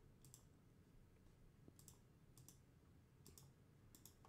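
Faint computer keyboard keystrokes in near silence, a few scattered clusters of clicks.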